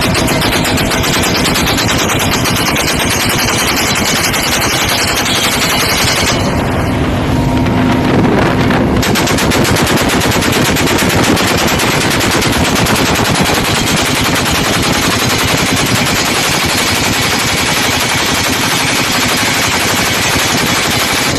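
Door-mounted machine gun firing rapid, sustained automatic bursts from a helicopter. Under the shots runs a steady low hum from the helicopter.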